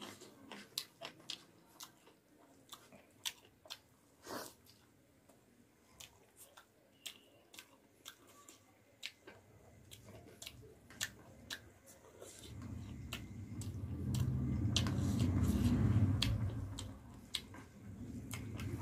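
Close-up chewing of rice and masaura curry, with many sharp wet mouth clicks and small crunches. About twelve seconds in, a low rumble rises under the chewing. It is loudest a little later, then dips and returns near the end.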